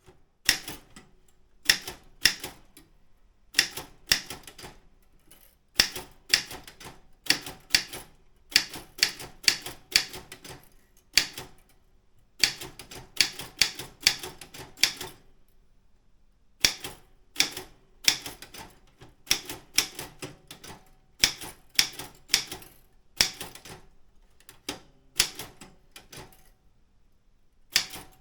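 Daro Optima M16 manual typewriter being typed on: quick clusters of sharp key strikes in an uneven rhythm, broken by short pauses of about a second.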